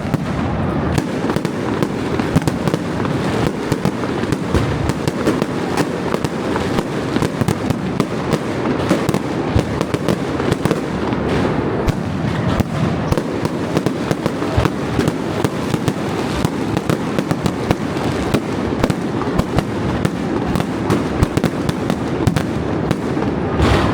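Fireworks display going off in a dense, unbroken barrage: many bangs and crackles overlapping, with no pause.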